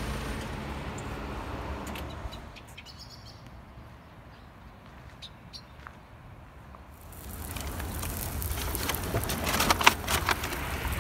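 Steady low outdoor rumble that drops away about two seconds in to a quieter stretch with a few faint clicks and chirps. About seven seconds in, a louder hiss with crackles sets in.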